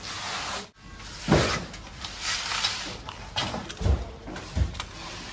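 Clunks and scraping of metal parts and tools under a car as a side step is fitted, with sharper knocks about a second in, near four seconds and again just after.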